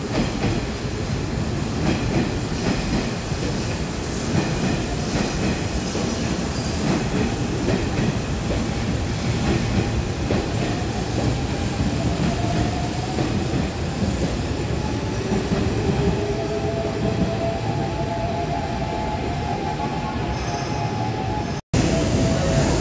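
Hanshin 8000 series electric train running past the platform: a steady rumble of wheels on the rails, with a faint motor whine that rises slowly in pitch over the second half. It cuts off abruptly near the end, giving way to a louder, steady rumble.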